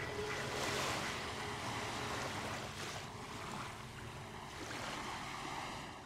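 A rushing noise like surf, swelling and ebbing, with faint held music tones underneath. It fades out near the end.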